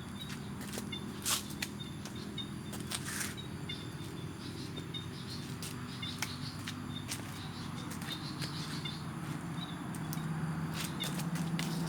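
Outdoor ambience: small birds chirping over a steady low hum that grows louder near the end, with a few sharp clicks and brief whooshes.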